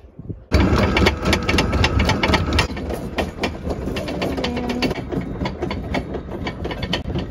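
Sailboat's anchor windlass paying out the anchor chain, which clatters rapidly over the gypsy and the bow roller as the anchor drops. It starts suddenly about half a second in and keeps going.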